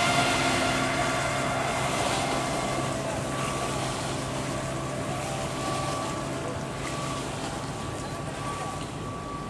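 The approaching passenger ship KM Permata Bunda gives a steady low drone, with wind on the microphone. Music from its loudspeakers fades out in the first second.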